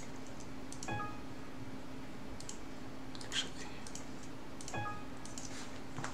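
Scattered computer mouse clicks over a faint steady hum, with two short pitched blips about a second in and near five seconds.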